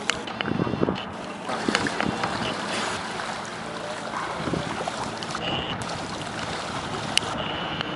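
Wind buffeting the microphone and water washing along a sailing yacht's hull under way, with a few sharp knocks.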